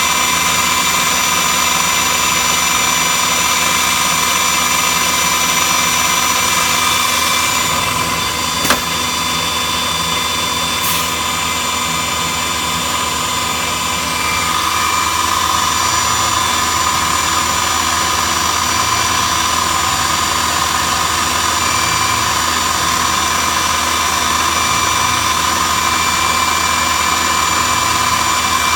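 CNC woodworking router running, its spindle motors giving a steady high whine over continuous machine noise. A single sharp click comes about nine seconds in, and the sound shifts slightly around eight and fourteen seconds.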